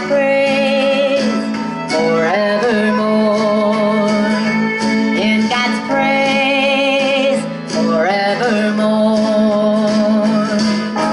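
A woman singing the closing line of a bluegrass gospel song in long held notes with strong vibrato, sliding between pitches about two seconds in and again near eight seconds, over acoustic guitar accompaniment.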